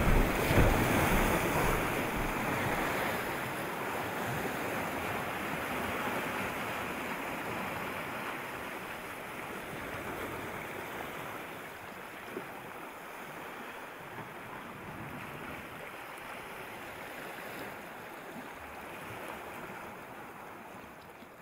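Sea surf washing over rocks, a steady rushing wash that slowly fades out.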